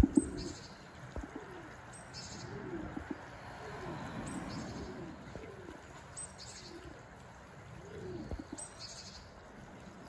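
Pigeons cooing: low, rounded coos repeating about once a second, with faint high chirps from another bird every second or so. A single sharp knock comes right at the start.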